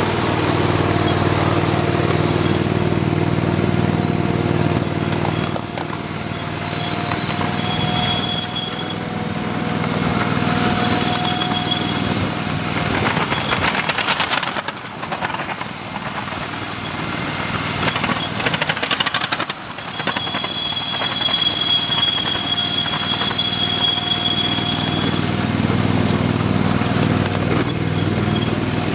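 Ride-on miniature train running along its track: the locomotive's motor hums steadily while the wheels clatter over the rails, with high-pitched wheel squeals coming and going.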